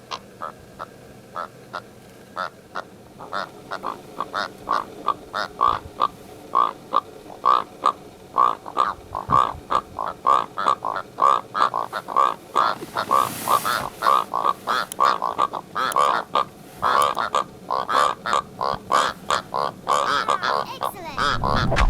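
Karoo korhaan calling: a long run of short calls, sparse at first, then about two or three a second and closer together in the second half.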